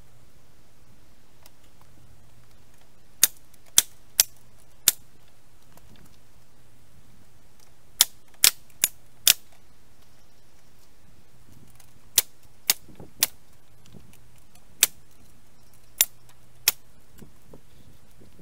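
Pneumatic framing nailer firing 3½-inch nails into pallet wood: about fourteen sharp shots in quick groups of two to four, with pauses between the groups.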